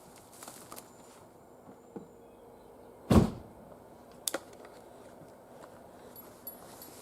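A loud single thump a little over three seconds in, then a sharper double knock about a second later, amid faint handling clicks and rustling.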